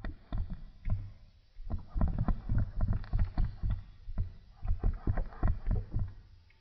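Water bubbling and gurgling inside a homemade plastic-bottle bong as smoke is drawn through it, in rapid irregular pops with brief pauses.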